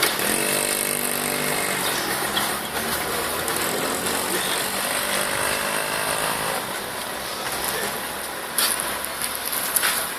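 A motor vehicle engine running, its pitch drifting slowly, fading out after about six seconds. Two sharp clicks near the end.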